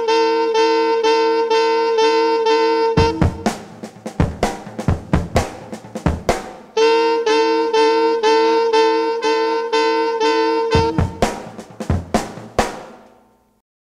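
Hip-hop remix music: a held, pulsing pitched riff alternates twice with a run of sharp drum hits, and the track ends about 13 seconds in.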